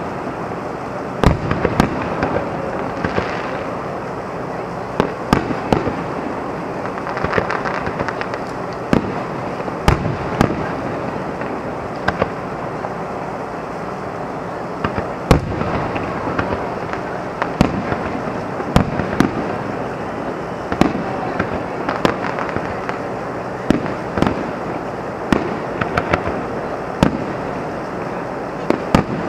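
Aerial fireworks shells bursting: about twenty sharp bangs at uneven spacing, often a second or two apart, over a steady background noise.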